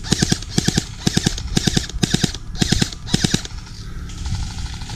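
Airsoft gun firing on full auto in short bursts of rapid clicking shots, about seven bursts in the first three and a half seconds, then it stops.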